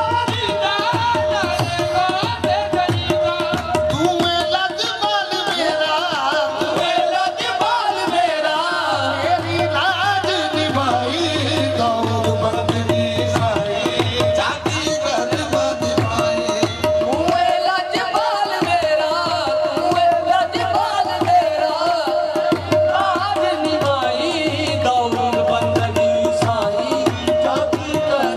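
Live qawwali: voices singing with wavering, ornamented lines over a steady harmonium drone and hand-drum rhythm.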